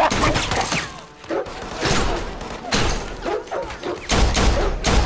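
Handgun shots in a close-quarters gunfight, fired in irregular strings, mixed with heavy thuds and crashes.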